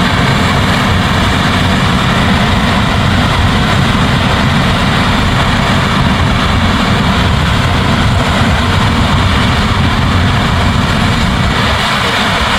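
New Holland CR10.90 combine harvester running steadily under load while threshing barley: a loud, even machine noise with a low rumble and a few steady tones, no change in pace.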